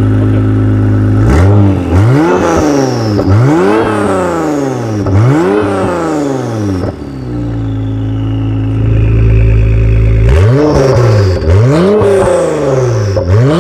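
2017 Acura NSX's twin-turbo V6 through an Armytrix titanium exhaust, revved in place: it idles steadily, then is blipped up and down about four times in quick succession, settles back for a few seconds, and is blipped again about three times near the end. A high falling whistle follows several of the revs.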